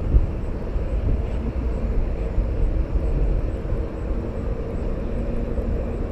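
Steady low outdoor rumble with a faint engine drone, in the manner of a distant airplane or traffic.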